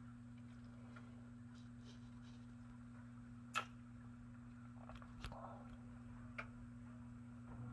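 Near silence: a faint steady low hum with four sharp clicks, the loudest about three and a half seconds in, then two close together about five seconds in and one more near six and a half seconds.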